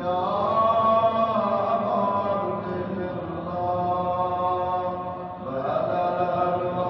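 A man's voice chanting a Shia Muharram mourning lament in long held notes that waver and slide between pitches, pausing for breath briefly twice.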